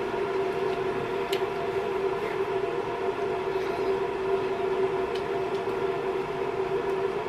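A steady hum of several held tones at once, unchanging, with a few faint light clicks.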